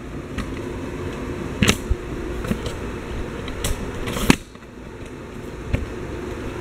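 Handling noise from a phone being moved around in the hand: low rubbing and rumbling with a few sharp clicks and knocks. The loudest knock comes a little past four seconds in.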